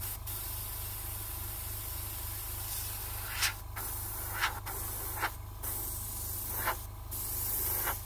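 Iwata airbrush hissing at high air pressure, triggered in several short blasts with the air cutting off briefly between them, each ending in a louder rising spurt as paint spatters out. The high pressure is being used to blow a splattered, oily-looking blotch.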